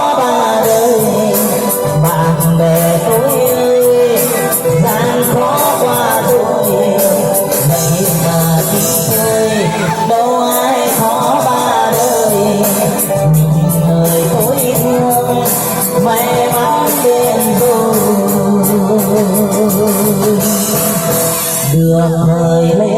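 Upbeat music with a wavering lead melody over a steady beat and repeating bass line: the instrumental break of a Vietnamese spring greeting song.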